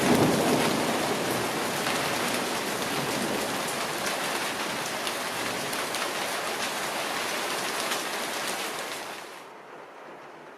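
Heavy rain pouring, a dense hiss of drops with fine patter. It starts abruptly and fades down about nine seconds in, becoming quieter and duller.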